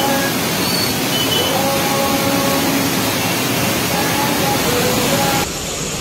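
Loud, steady rushing noise of fast-flowing floodwater, with a few faint tones over it. It changes abruptly near the end where the recording cuts.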